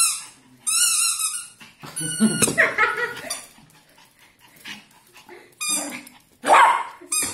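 Chihuahua barking and yipping excitedly in play, mixed with short high-pitched squeaks from a rubber chicken squeak toy.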